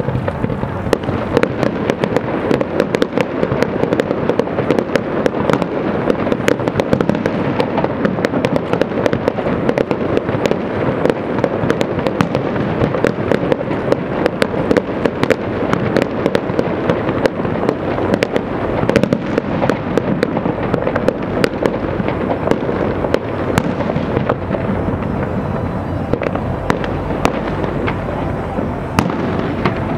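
Aerial fireworks display: a dense, continuous run of sharp cracks and crackling pops over a steady rumble of bursts, thinning slightly in the last few seconds.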